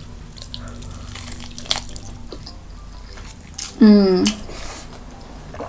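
Biting and chewing crispy Korean fried chicken wings: irregular sharp crunches and wet mouth clicks, with one short voiced 'mm'-like exclamation about four seconds in.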